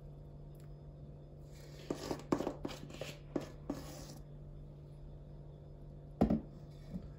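A metal spoon scraping and clinking against a metal bowl while scooping thick glaze, several scrapes and clicks over about two and a half seconds, then a single louder knock about six seconds in. A steady low hum sits underneath.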